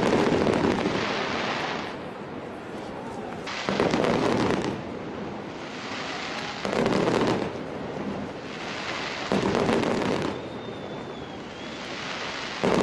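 Fireworks display going off: a loud burst about every three seconds, each lasting about a second, with crackling in between.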